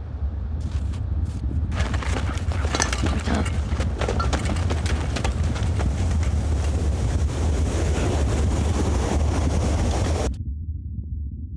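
Hurried footsteps crunching through snow, with rustling as someone pushes through conifer branches, over a steady low wind rumble. The crunching and rustling cut off abruptly near the end, leaving only the low rumble.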